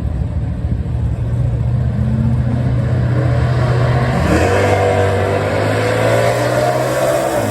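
Drag racing car engines running at the strip, then accelerating hard from about four seconds in, the engine pitch climbing.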